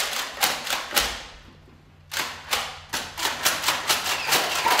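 A rapid, irregular series of sharp clicks and knocks, stopping for about a second near the start and then picking up again.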